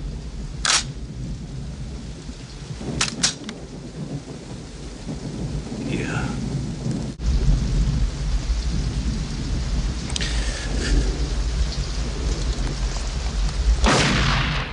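Heavy rain with thunder rumbling throughout, louder in the second half. Sharp cracks about a second in and twice around three seconds in, and a loud surge near the end.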